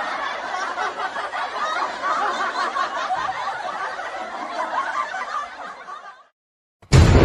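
Audience laughter, many people laughing at once, fading out about six seconds in. A loud burst of music cuts in abruptly near the end.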